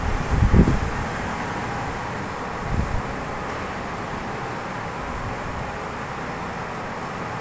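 Steady background noise with no clear source, broken by two short low thumps, one about half a second in and one near three seconds in, like a hand-held phone being moved.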